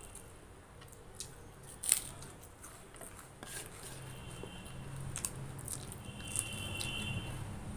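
Eating with the fingers: soft squishing as rice and curry are mixed by hand, then biting and chewing, with scattered sharp mouth clicks. The loudest click comes about two seconds in.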